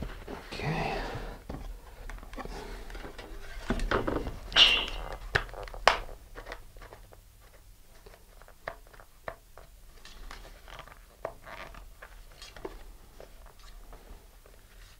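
Handling noises as a fiberglass model rocket is worked in gloved hands: a paper towel rustling near the start, a few sharp knocks and clicks about four to six seconds in, then fainter scattered ticks as the finned body tube is turned over.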